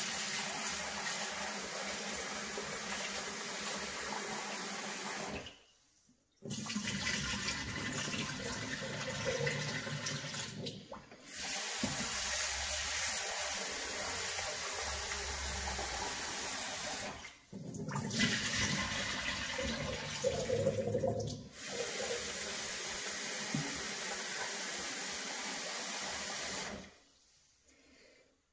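Kitchen tap running into a glass bowl of rice while the rice is rinsed and swished by hand, water splashing steadily. The running water breaks off briefly four times and stops shortly before the end.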